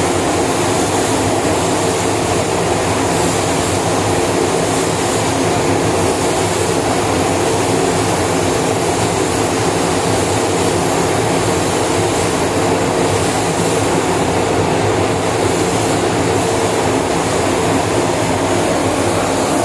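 Paint booth's ventilation fans running with a steady roar and a low motor hum.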